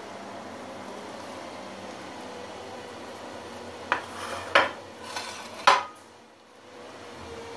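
Glass dishes knocking and clinking together on a stone countertop: four sharp clatters in quick succession about four seconds in, over a faint steady hum.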